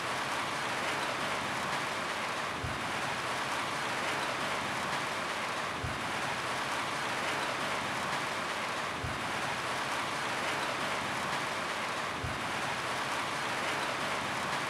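Steady rain falling on a roof: an even, dense hiss of drops. A soft low thud repeats about every three seconds underneath.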